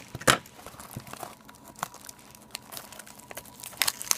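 Packaging of a box of trading cards being handled and torn open: crinkling and tearing with scattered sharp crackles, a loud snap about a third of a second in and denser crinkling near the end.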